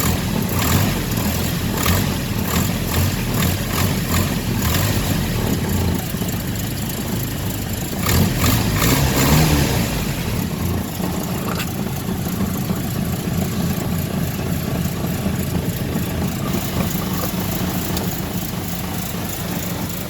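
A Land Rover Series II's 2.25-litre petrol four-cylinder engine idling in the cold, with a regular tapping over the first several seconds that the owner put down to the rocker gear. It is revved up briefly about eight seconds in, then drops back to idle.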